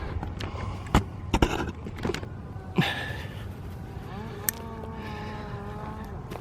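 Camera being handled and set down: a few sharp knocks and clicks in the first three seconds. Then a steady engine drone with a slightly wavering pitch comes in for about two seconds before fading.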